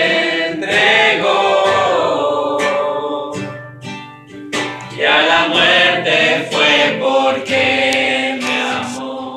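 A small group of people singing a Spanish-language worship song together to a strummed guitar. The singing drops away briefly about three and a half seconds in, then comes back in full.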